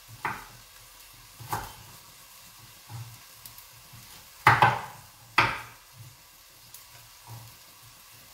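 Kitchen knife cutting carrots on a wooden cutting board: a few separate sharp cuts about a second or so apart, the two loudest around the middle.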